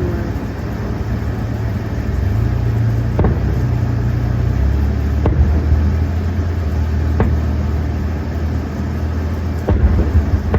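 A steady low engine-like rumble that shifts in pitch a couple of times, with a few faint clicks or pops.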